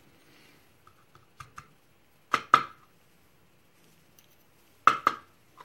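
Small brass lock parts and tweezers clicking against a wooden pin tray while a lock cylinder is being gutted. A few light ticks come first, then two sharp double clicks, one about halfway through and one near the end.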